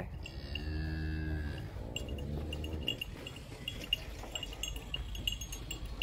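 A cow moos: one long low moo of about a second and a half, then a shorter, fainter one. Light high tinkling ticks run underneath.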